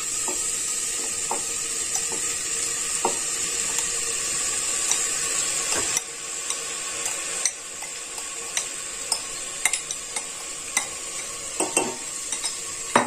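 Sautéed vegetables sizzling in an aluminium pressure cooker as washed, wet dalia (broken wheat) is tipped in on top, with light taps and scrapes of the spoon and bowl against the pot. The sizzle drops about six seconds in, and the taps grow more frequent after that.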